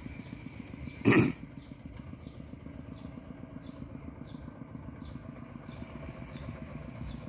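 A small engine idling steadily with a low pulsing rumble, and a high short chirp repeated about every 0.7 seconds. About a second in there is one brief loud thump.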